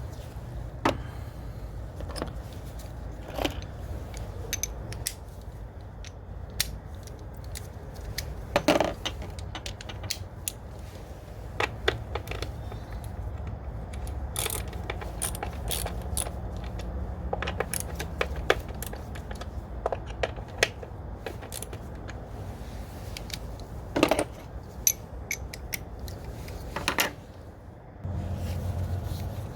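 Metal hand tools and engine parts clinking and tapping at irregular intervals while ignition coils are taken off a car engine, with a few louder knocks, over a steady low hum.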